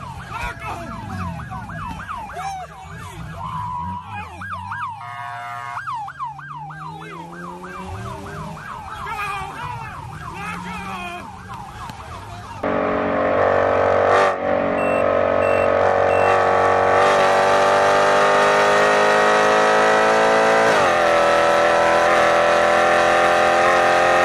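Emergency vehicle siren yelping, its pitch sweeping up and down about twice a second. About halfway through it gives way to a louder held chord of several steady tones that slowly rises in pitch.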